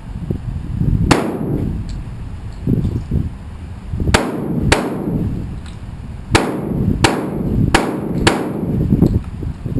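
Shotgun firing seven shots: a single shot, then after about three seconds a quick string of six, about half a second to a second apart.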